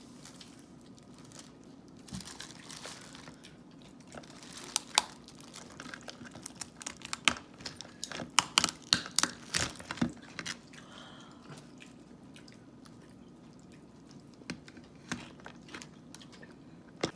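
Cooked lobster and crab shells cracking and snapping as they are pulled apart by hand, a quick run of sharp cracks in the middle, with a few softer clicks and crinkles before and after.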